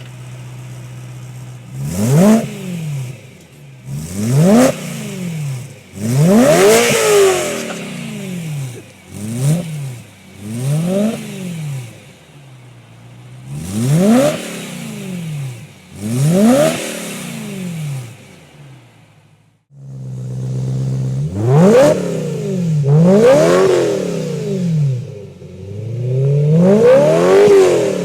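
BMW E9X M3's V8 engine revved repeatedly from idle through its exhaust: a series of quick throttle blips, each rising in pitch and falling back to idle, with a brief break about two-thirds through.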